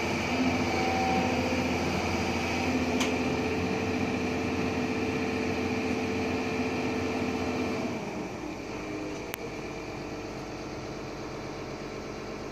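Doosan DX140 excavator's diesel engine running steadily while it works a grapple under load, with several steady tones over the engine noise. About eight seconds in, the sound drops and settles to a quieter, lower running.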